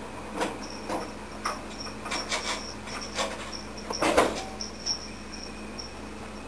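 Kitten moving right against a floor-level camera: about a dozen soft knocks and rustles from its paws and body, irregularly spaced, with the loudest cluster about four seconds in. A steady low hum runs underneath.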